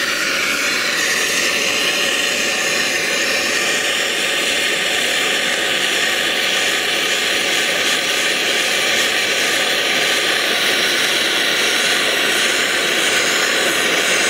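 MAP gas hand torch burning with a steady hiss, its flame held into a small crucible of molten gold and lead during cupelling.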